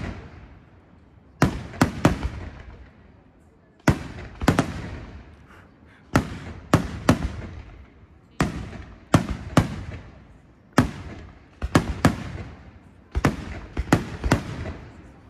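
Aerial firework shells bursting: groups of two or three sharp bangs about every two and a half seconds, each trailing off.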